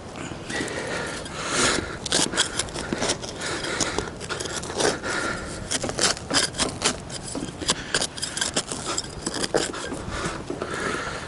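Hand digger scraping and stabbing into soil, with an irregular run of short scrapes and clicks as a metal-detecting target is dug out.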